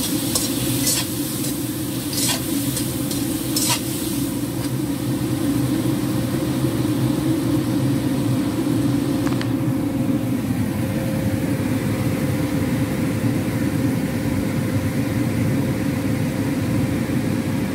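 Sausage pieces frying in oil in a stainless-steel pan. A metal spatula clinks against the pan several times in the first four seconds, over a steady low rumble and hum.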